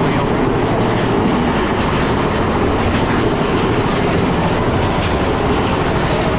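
Mine-train roller coaster cars running along the track, a steady loud clattering rattle of wheels and cars.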